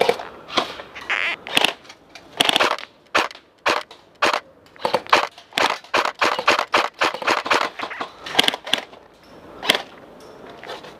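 Airsoft guns firing single shots in quick, uneven succession: sharp cracks, thickening to about three a second in the middle and stopping about two seconds before the end.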